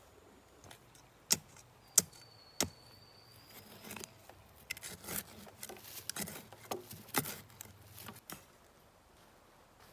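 Bamboo being worked by hand: three sharp knocks about two-thirds of a second apart, then a run of lighter cracks, clicks and rustles for about four seconds that stops suddenly.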